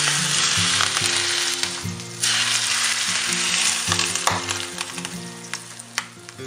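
Hot oil sizzling as it is poured from a saucepan over steamed red snapper topped with scallions. The sizzle dips briefly about two seconds in, surges again, then fades away over the last couple of seconds.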